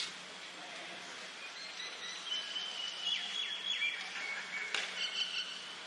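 Birds chirping and calling over outdoor background noise, with a faint click near the end.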